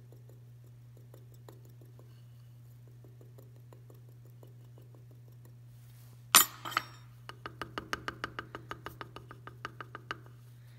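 Faint scratching of a steel tool spreading sawdust in a ring's bezel cup, then a sharp knock a little past halfway and a quick run of light metallic taps, about five a second, for roughly three seconds. The ring is being tapped so the sawdust bed settles evenly in the bezel before the stone goes in.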